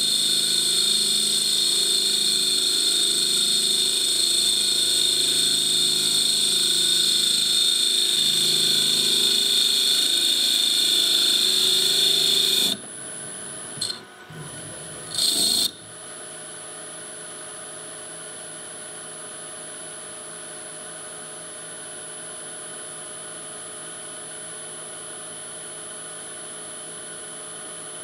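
CNC mill's spindle spinning a Stone Hopea burl wood ring blank while a boring bar cuts its bore: a loud, steady whining cutting noise with high tones. About thirteen seconds in it drops abruptly to a quieter steady machine hum. A brief loud burst comes a couple of seconds later, then the hum runs on.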